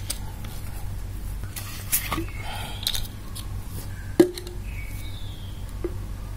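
Hands handling a clear plastic bottle and its screw cap on a tiled floor: scattered plastic clicks and knocks, the sharpest about four seconds in, over a steady low hum.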